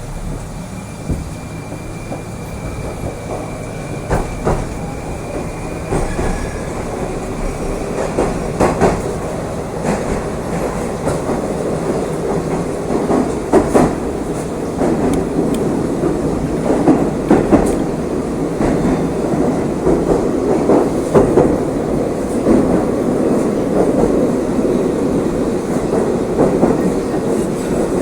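Moscow Metro train running through the tunnel, heard from inside the carriage: a steady rumble with the clatter of wheels over rail joints, growing gradually louder.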